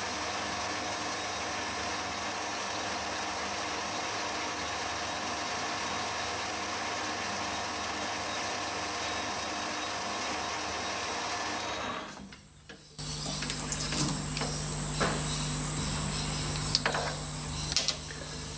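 Metal lathe running steadily while turning an aluminium sheet spacer, a continuous machine whir with a gear whine. About twelve seconds in it cuts off. A steady low hum and a high-pitched whine follow, with a few light clicks as the finished aluminium disc is handled.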